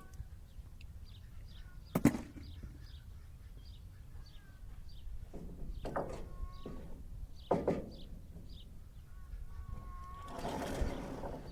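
Songbirds chirping in the background with short repeated calls and a few held whistled notes. A loud sharp click comes about two seconds in, followed by a couple of knocks and a brief rushing rattle near the end.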